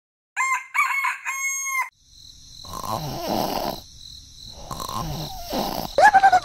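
A fowl crowing, in the manner of a rooster: a few short notes and then one long held note, about a second and a half in all. After it comes a rougher, noisier stretch of softer calls.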